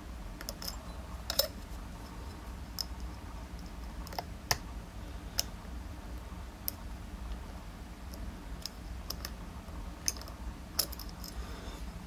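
Steel dimple-lock pick working inside a DOM iX cylinder under heavy tension, its tip clicking against the pins and keyway: a dozen or so light, irregular clicks, the sharpest about one and a half seconds in and again near the end. The pins are being pushed down.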